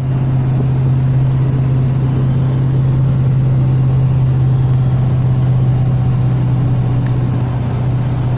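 Steady low-pitched hum from the front of a Fiat Novo Uno Way 1.0 at over 100 km/h, holding one pitch over the car's road and engine noise. The owner traces it to the three engine mounts and says replacing them makes the noise go away.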